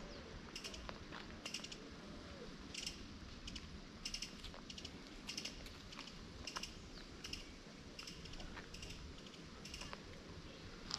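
Footsteps on a dirt and gravel path, a short scuff roughly every half second to a second, quiet over faint steady background noise.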